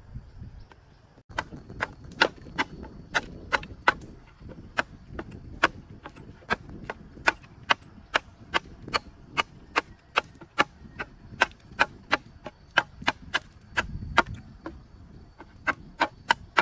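Repeated sharp chopping strikes, roughly two to three a second, starting about a second in and going on steadily.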